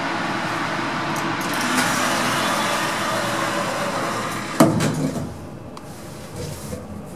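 Passenger lift in motion with a steady noisy hum, then a sharp thump about four and a half seconds in, after which the sound goes quieter.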